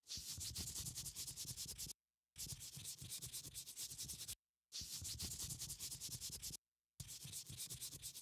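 A rapid, rough scraping sound in four stretches of about two seconds each, with short silent gaps between them and fast even strokes within each stretch.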